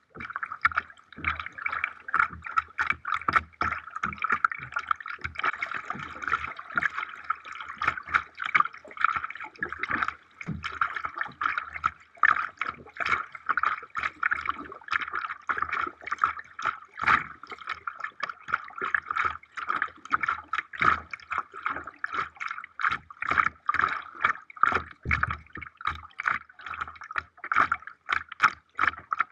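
Water splashing and dripping close by on a kayak trip: a dense run of small irregular splashes and trickles.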